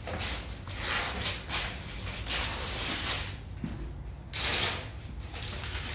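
Gift wrapping paper rustling and tearing as a present is unwrapped, in several short bursts; the loudest comes about four and a half seconds in.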